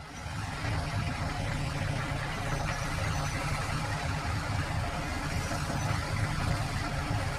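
Fendt 9T combine harvester running while harvesting, a steady engine and machinery drone with a strong low rumble.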